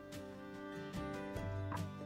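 Quiet background music: held notes, with the chord changing about a second in.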